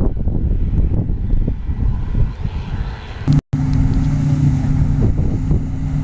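Farm machinery engine running at a steady pitch, with a rough low rumble in the first half. It drops out for an instant about halfway through, then continues as a steadier, clearer engine drone.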